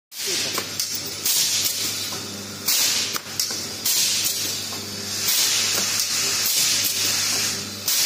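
Automatic resistance butt welding machine for triangle buckles and D-rings cycling: repeated hisses of compressed air about every second or so, with clicks and a steady low hum.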